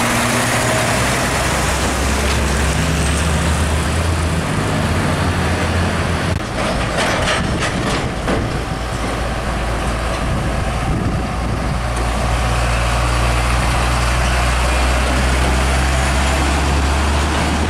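Heavy diesel trucks passing close by: a Mercedes-Benz Actros tractor unit, then an Isuzu Giga container truck, their engines giving a steady low drone. There are a few brief sharp noises around the middle.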